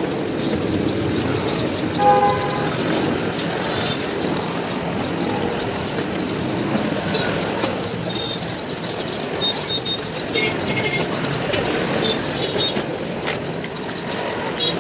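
Street traffic running steadily, with a short horn toot about two seconds in and a few brief high beeps later.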